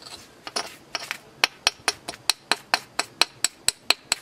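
Stone on chert: a small hand-held stone works the edge of a Buffalo River chert piece. After a few looser strokes, it settles into quick, even clicks, about five a second.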